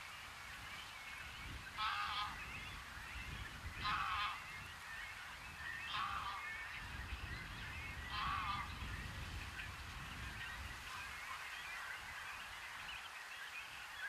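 A goose honking four times, evenly spaced about two seconds apart, over steady background birdsong.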